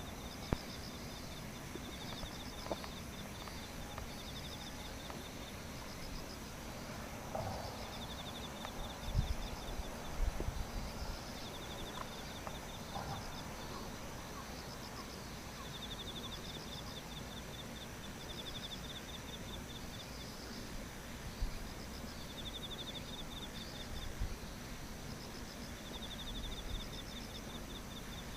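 Field crickets singing in pulsed trills about two seconds long, repeating every few seconds, over a steady high insect hum, with low rumble and a few soft knocks about nine to ten seconds in.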